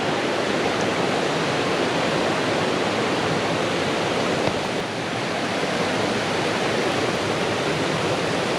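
Steady rush of fast-flowing creek water tumbling over rocks.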